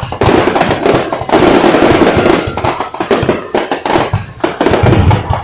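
Fireworks going off in a rapid, dense barrage: many loud overlapping bangs and crackles with no pause.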